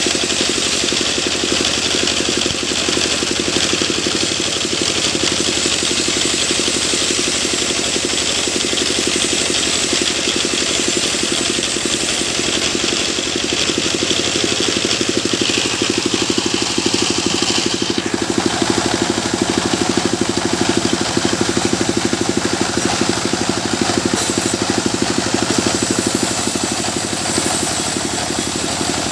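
Sawmill machine's engine running steadily, with a shift in tone about two-thirds of the way through.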